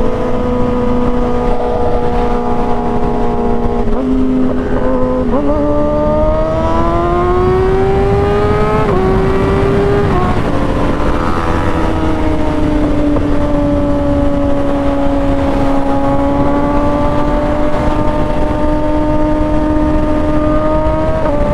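Kawasaki ZX-6R inline-four engine under way. It holds a steady cruise, then climbs in pitch under acceleration from about five seconds in and drops back in a step or two around nine to ten seconds in before settling to a steady pitch, with heavy wind rush over the helmet-mounted mic.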